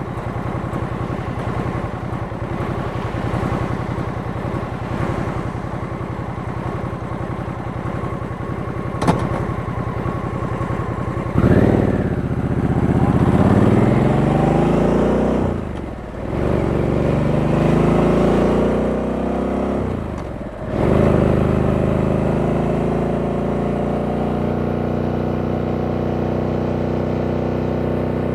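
Stock Harley-Davidson Sportster S V-twin running steadily at low revs, a brief click about nine seconds in, then pulling away: the engine note climbs, drops sharply at an upshift, climbs again through a second upshift, and settles into a steady cruise.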